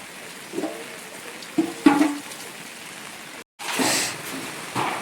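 Steady heavy rain, with two short pitched sounds about half a second and two seconds in, and a sudden drop-out of all sound for a moment about three and a half seconds in.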